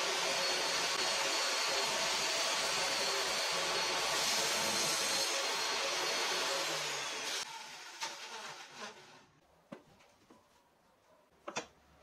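An electric motor-driven tool runs steadily, then is switched off about seven seconds in and winds down; a few light knocks follow.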